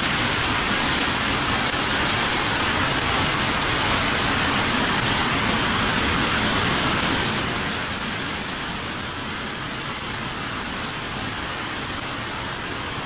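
Floodwater rushing down a street: a loud, even rush of water that eases a little about eight seconds in.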